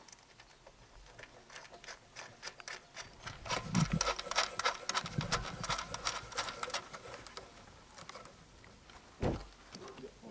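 Hands working on a metal tractor cab roof while fitting an LED beacon and its wiring: a dense run of quick clicks and rubbing for a few seconds, then a single dull knock near the end.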